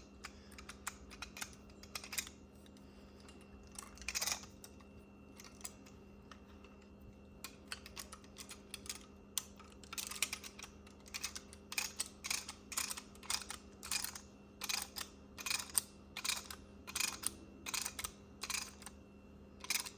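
Ratchet clicks from a Lang ratcheting brake caliper press being worked by hand: single clicks spaced out at first, then a quicker run of about two to three clicks a second from about halfway in. The click seems less precise to the owner than that of a comparable tool.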